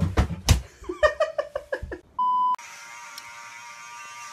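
A little girl's short, broken startled cries with a few knocks, then a short steady beep about two seconds in, followed by a steady buzzing hum.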